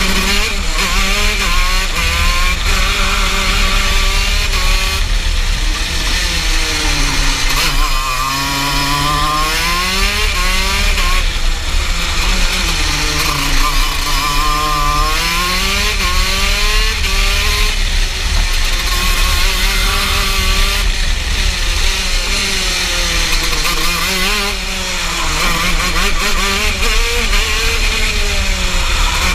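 TM KZ10B 125 cc two-stroke shifter kart engine at racing speed, its pitch repeatedly rising under acceleration and dropping under braking through the corners.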